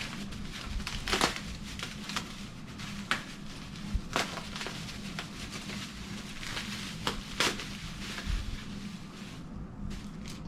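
Protective packaging being pulled open and crumpled from around a graded comic book slab, crinkling throughout with several sharp crackles.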